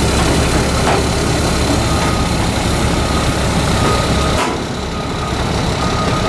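Heavy diesel truck engine running steadily as it tows a house-moving trailer, its low rumble easing a little about four seconds in. Short, faint high beeps from a backup alarm come and go from about two seconds in.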